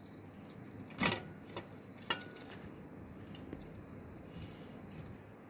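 Handling noise on a stainless steel plate as thread is pulled off a fried stuffed bitter gourd: a knock about a second in, then a sharp click with a brief metallic ring about two seconds in, and faint ticks and rustling after.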